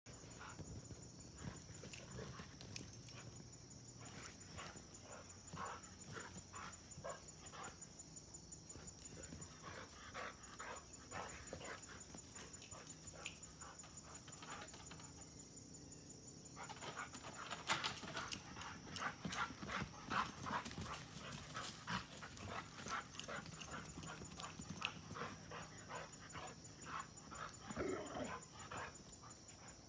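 Two dogs playing together on grass, with a quick run of short scuffles and dog noises that get busier and louder from about halfway through, and a short whine near the end.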